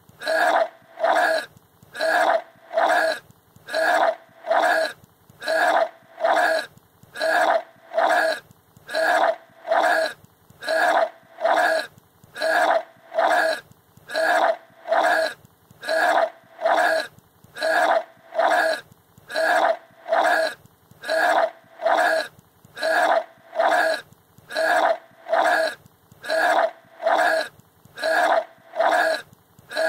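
A boy retching and gagging over and over in an even rhythm, about three heaves every two seconds, as he throws up after gulping bananas and Sprite.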